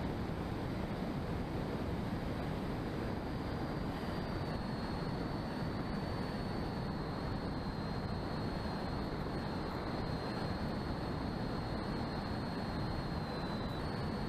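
Onboard sound from an electric RC foam plane in flight: steady wind noise rushing over the camera, with a thin high whine from the motor and propeller that dips slightly in pitch about four seconds in and jumps back up near the end.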